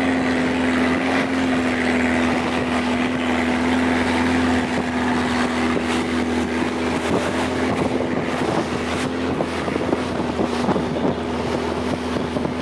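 Speedboat running at speed: a steady engine drone under the rush of the hull through the water, with wind buffeting the microphone, more so in the second half.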